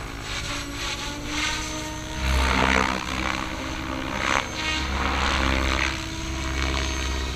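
MSH Protos Max V2 electric RC helicopter in flight: a steady pitched whine from the motor and rotors, with surges of blade noise as it manoeuvres, about two and a half and four and a half seconds in.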